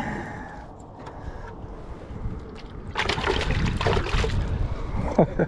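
Wind noise on the microphone, heavier for a second or so about three seconds in.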